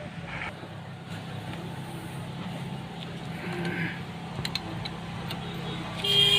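Steady low hum of a running engine, with a short louder sound near the end.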